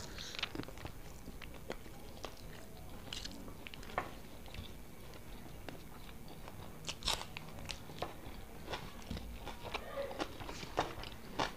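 A man chewing mouthfuls of rice eaten by hand, with scattered soft wet mouth clicks and smacks, a few of them louder past the middle and near the end.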